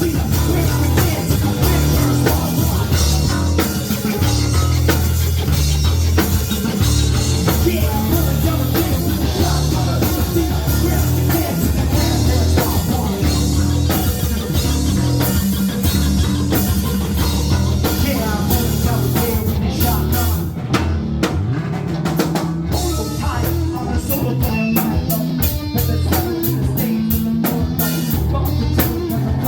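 Live band music with a drum kit, electric guitar and bass, and some singing, in an upbeat rock style.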